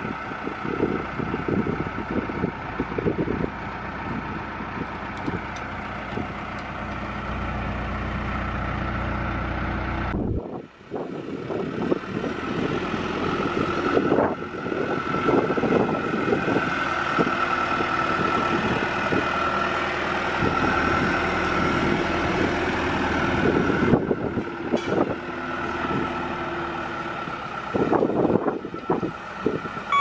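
Diesel engine of a John Deere 310-series backhoe loader running steadily, with a steady high whine over it. The sound drops out briefly about ten seconds in and resumes.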